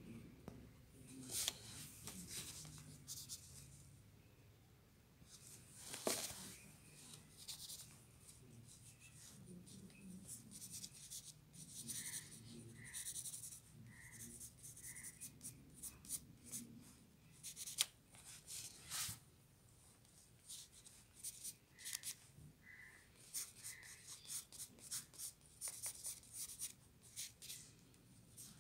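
Pencil scratching on drawing paper in quick, irregular sketching and shading strokes, with a few sharper ticks.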